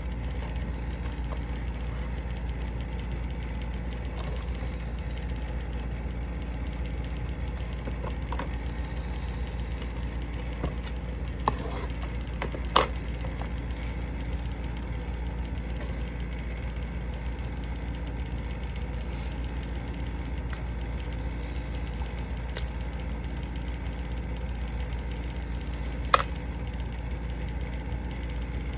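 Steady low machine hum, like a motor running, with a few sharp clicks, the loudest about halfway through and near the end.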